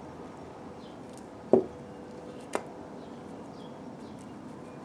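Two sharp knocks about a second apart, the first much louder, as seasoning containers are put down on a table. Faint short bird chirps sound in the background.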